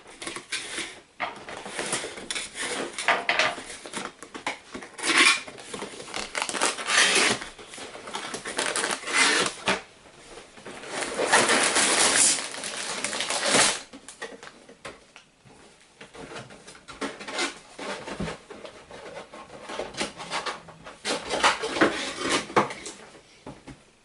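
A LEGO set box being opened and its contents handled: cardboard and plastic parts bags rustling and clattering in uneven bursts, with a longer stretch of rustling about halfway through.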